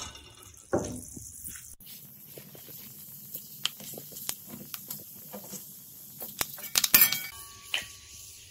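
Fenugreek seeds sizzling in hot mustard oil in a kadhai: a fine steady hiss with many small crackling pops. A couple of louder knocks of the steel ladle against the pan come about a second in and again near seven seconds.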